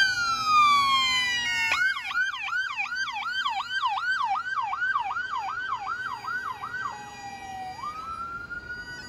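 Police escort vehicle's electronic siren. It starts on a falling wail, switches suddenly a little under two seconds in to a fast yelp of about three rising-and-falling sweeps a second, then about seven seconds in drops low and climbs back to a held high wail near the end.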